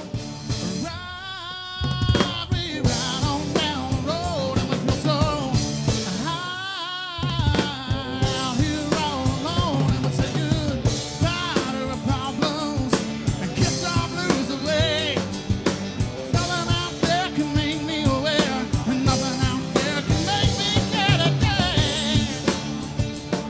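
Band music with singing over guitars and a drum kit keeping a steady beat.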